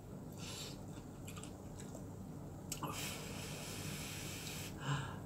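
A person blowing on hot instant ramen noodles held up on chopsticks to cool them: a few short puffs, then one long breathy blow of about two seconds.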